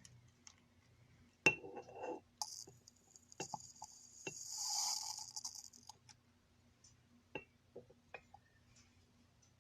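Scattered light clicks and knocks of small objects being handled and set down on a surface, with a soft rustle or scrape lasting about three seconds in the middle.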